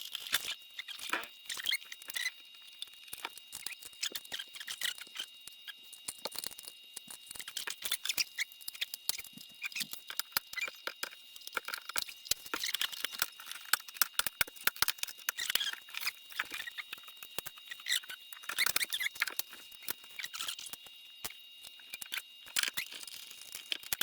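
Many irregular small clicks, taps and scrapes of plastic parts being handled as the all-in-one computer is taken apart again to reseat its RAM, over a faint steady high-pitched tone.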